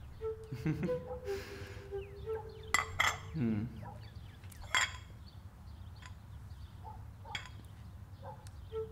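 Ceramic cups clinking sharply against saucers and the wooden table several times, the loudest about three and five seconds in, over soft background music of slow held notes.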